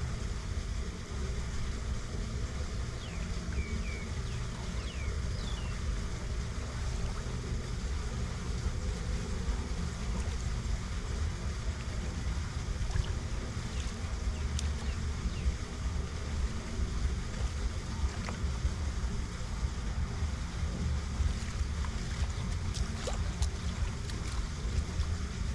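Steady low wind rumble on the microphone over floodwater running off a roadside storm drain, with a few splashing footsteps in shallow water near the end.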